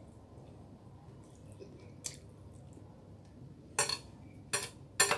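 Cutlery clinking against a plate while eating: a single clink about two seconds in, then three more clinks close together near the end.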